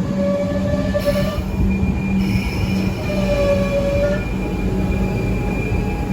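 A train running through with a steady low hum and two pitched squeals of about a second each: one at the start and one about three seconds in.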